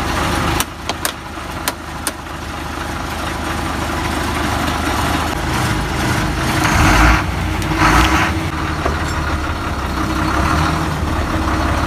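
Ashok Leyland tourist bus's diesel engine idling steadily. A few sharp clicks come in the first two seconds, and two short bursts of hiss come about seven and eight seconds in.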